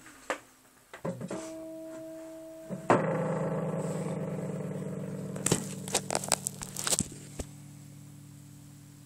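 A guitar chord is struck about three seconds in and left to ring out, fading slowly. It follows a softer held note, and several knocks and scrapes of handling come over it between about five and a half and seven and a half seconds in.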